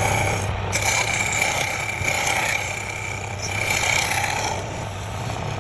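Woodturning lathe running with a steady hum, while a turning tool cuts the spinning wood in spells of hissing scrape that start and stop every second or two.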